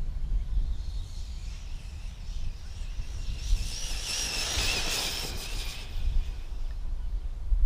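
Arrma Typhon RC buggy's electric motor and drivetrain whining at speed on a speed run. The whine builds over a few seconds, is loudest near the middle, and fades away about six seconds in. Wind rumbles on the microphone throughout.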